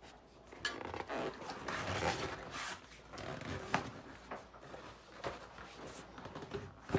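Rubber fat-bike tire and inner tube being handled: irregular rubbing and scraping with a few sharp knocks.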